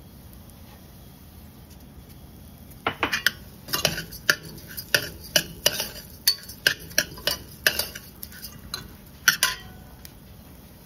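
A metal spoon stirring dry, oiled white rice in a stainless steel saucepan, clinking and scraping against the pot. A string of sharp, irregular clinks starts about three seconds in and stops shortly before the end.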